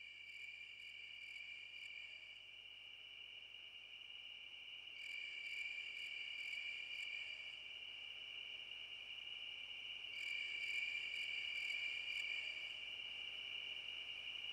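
Insect chorus: a steady high buzzing, with a brighter, pulsing phrase lasting two to three seconds coming in about every five seconds.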